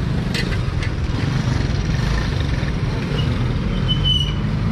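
Steady low rumble of street traffic and idling engines, with a few faint clicks near the start and a brief high chirp about four seconds in.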